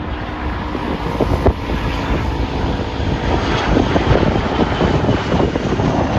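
Jet airliner's engines passing, a loud rushing noise with a faint high whine that grows louder about halfway through.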